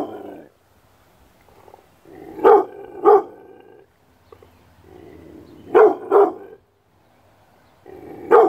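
Six-month-old Rottweiler barking, mostly in pairs of barks about three seconds apart, each pair led in by a lower, drawn-out vocal sound.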